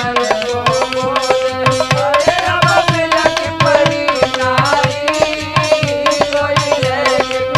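Instrumental interlude of Indian folk music: hand drums playing a fast, steady rhythm under a held drone and a melody line.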